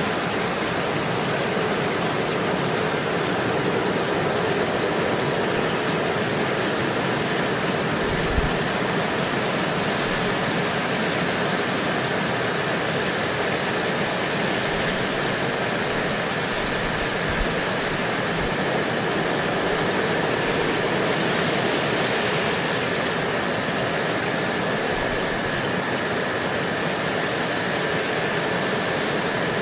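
Gentle rain falling steadily, an even hiss of drops on leaves and surfaces, with a faint steady high tone beneath it. A soft low thud sounds twice, about a third and about halfway through.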